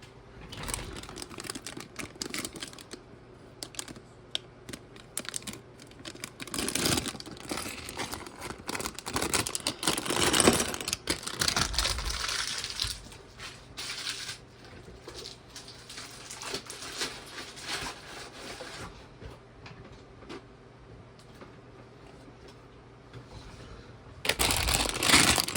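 Plastic parts bags crinkling as they are handled and opened, with small plastic building pieces clicking and clattering together in irregular bursts. It is busiest for several seconds in the first half.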